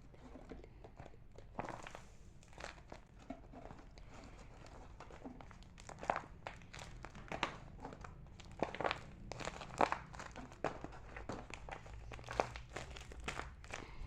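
Plastic crinkling and rustling from hand handling, with irregular sharp crackles that grow louder and more frequent about halfway through.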